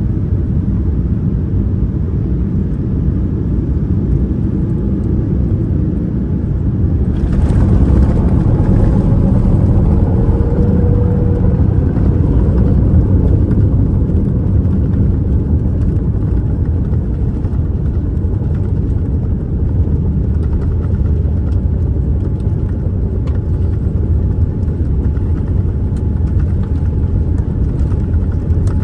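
Boeing 787-9 cabin noise during landing: a loud, steady rumble of the jet engines and airflow. About seven seconds in, a louder, hissier rush comes in and holds.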